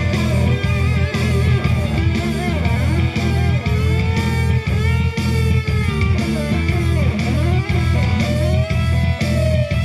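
Rock band playing live: electric guitar playing bending lead notes over bass guitar and a steady drum beat.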